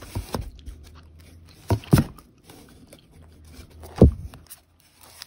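Comics and magazines being flipped forward in a cardboard box: a handful of soft paper slaps and knocks with light rustling, the loudest about four seconds in.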